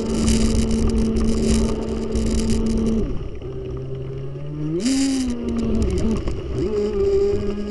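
An RC catamaran's Leopard 4074 2000kv brushless motor whining at a steady pitch, heard from on board over a hiss of water spray. About three seconds in the throttle is eased and the whine falls low; about five seconds in it climbs sharply again, dips once and settles back to a steady pitch.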